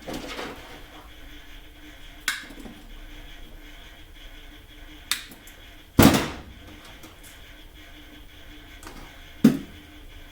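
A few sharp, separate clicks and knocks from handling tools and a USB cable on a workbench, the loudest about six seconds in, over a faint steady hum.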